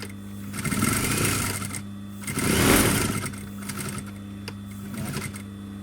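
Sewing machine stitching in two short runs of rapid needle strokes, about a second each, going over a backpack handle seam again and again so it will hold. A steady low hum runs underneath, with a few light clicks after the second run.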